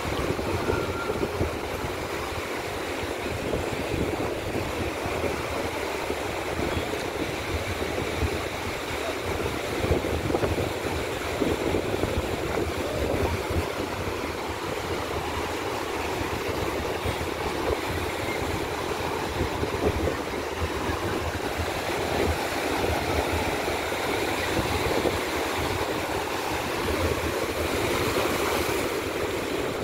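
Sea surf washing in and breaking against a shore of large rocks, a steady rushing noise with no let-up.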